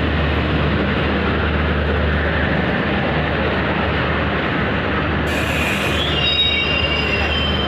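Express passenger train rolling into a station, a steady loud rumble of coaches on the rails with a low hum underneath. From about five seconds in a hiss rises, then thin high-pitched wheel and brake squeals join as the train arrives.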